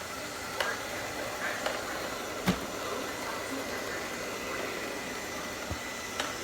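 ILIFE V5s Plus robot vacuum running: a steady motor and fan hum with a thin high whine, and a few light knocks, the loudest about two and a half seconds in.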